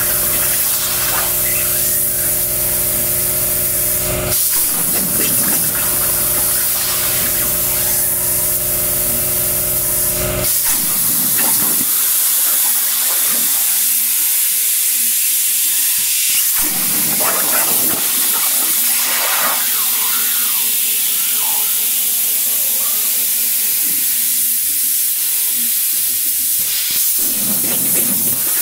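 CNC plasma cutter's torch hissing steadily while it works 3/16-inch steel plate over a water table. A steady machine hum with several tones runs under the hiss and stops about ten seconds in.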